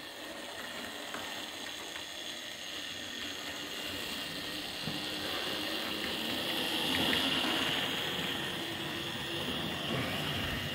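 Model locomotive running on the layout: a steady motor whirr with the rumble of wheels on the track and a few faint ticks over rail joints. It grows louder as the train comes closer, loudest about seven seconds in.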